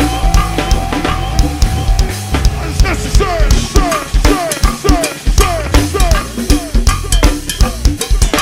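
Live go-go band music driven by a drum kit with bass drum and snare/rimshot hits. From about three seconds in, a short falling tone repeats about twice a second over the beat.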